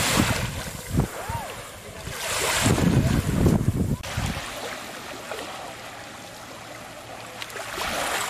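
Wind buffeting the microphone in irregular gusts, strongest in the first four seconds, over a steady faint wash of calm shallow sea water at the shoreline.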